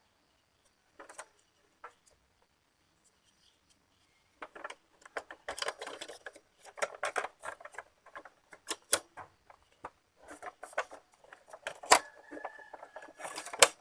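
Small plastic and metal parts being handled during reassembly of an Epson L360 inkjet printer: a quick run of irregular clicks, taps and rattles that starts a few seconds in, with a brief thin squeak near the end.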